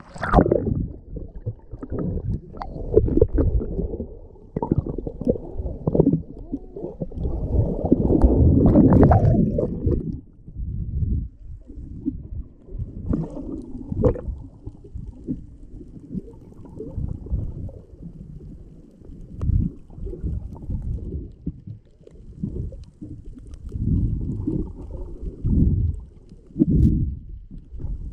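Muffled sloshing and gurgling of seawater heard through a camera held underwater, in uneven low surges with a few brief crackles. The loudest surge comes about eight to ten seconds in.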